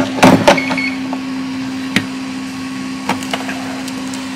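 Handling noise on a repair bench: a quick cluster of sharp knocks and clicks in the first half second, then single clicks about two and three seconds in, as metal tweezers and tools are set down and the laptop logic board is moved. Under them runs a steady low hum from the bench equipment, the hot air blower having just been switched off.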